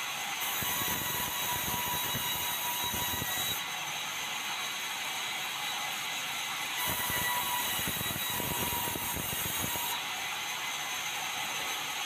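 Sawmill band saw running steadily while red meranti boards are fed through it. Two cuts are heard, the first starting just after the start and lasting about three seconds, the second starting about seven seconds in. Each brings a harsher, louder cutting sound over the machine's steady running.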